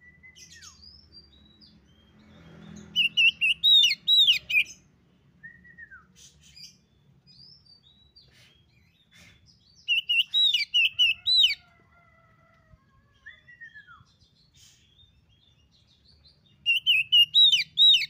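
Oriental magpie-robin (kacer) singing: three loud bursts of rapid, repeated high notes about six or seven seconds apart, with softer whistles and gliding notes between them.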